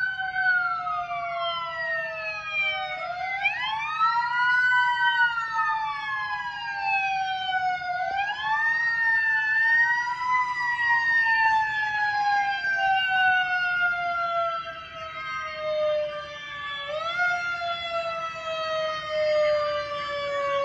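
Fire engine siren winding up in pitch several times, each quick rise followed by a long, slow fall.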